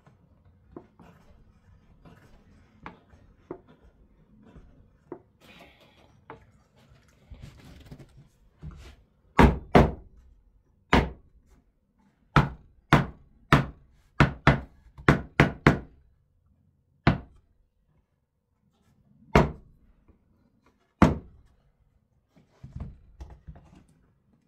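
Knocks on wood in an uneven run. Light taps come first, then about fifteen loud, sharp strikes between nine and twenty-one seconds in, several in quick succession, with softer knocks near the end.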